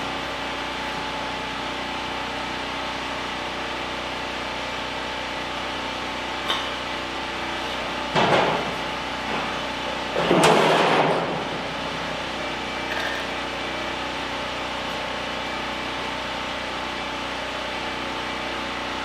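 Sheet-metal hood panels of a Minneapolis-Moline tractor clattering as they are set in place, a short clang about eight seconds in and a longer rattle about ten seconds in, over a steady engine hum.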